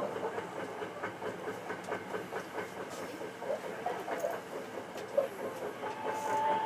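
Hankyu 9300 series electric train running along the line, heard from inside the front car: a steady rumble of wheels on rail with scattered light clicks over the track. A thin steady whine comes in near the end.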